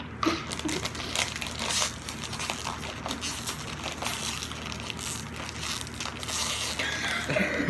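Crinkling and crackling of a Bean Boozled jelly bean package being opened and handled.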